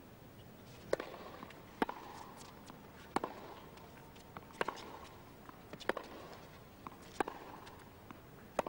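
Tennis ball being hit back and forth in a baseline rally on a hard court: sharp pops of racket strikes about every one and a half seconds, with fainter ticks of the ball bouncing between them.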